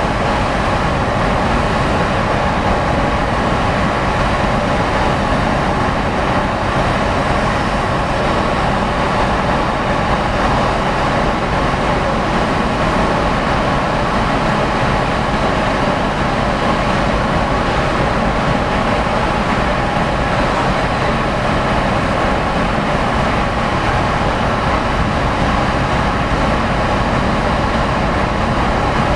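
A car ferry's diesel engines and funnel exhaust running steadily while the ship manoeuvres, a loud, even drone with steady hum tones.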